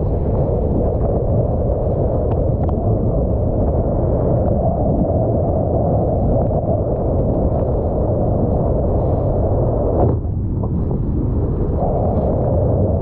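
Strong wind buffeting the camera's microphone, a steady low rumble, mixed with breaking surf and water rushing past the board. The rumble thins briefly about ten seconds in.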